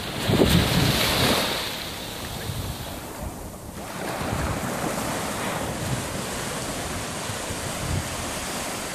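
Small waves breaking and washing up over the sand in a steady hiss, with wind buffeting the microphone, strongest in the first second or so.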